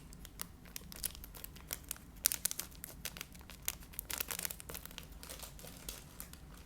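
Plastic candy packaging crinkling and crackling as it is handled and opened, in many small irregular crackles.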